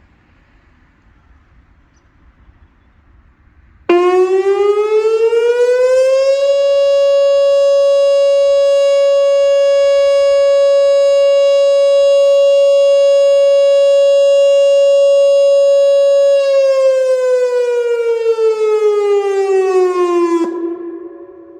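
Whelen WPS-2906 electronic outdoor warning siren sounding a test tone. It starts suddenly about four seconds in, winds up in pitch, holds one steady pitch for about ten seconds, then winds down and cuts off near the end.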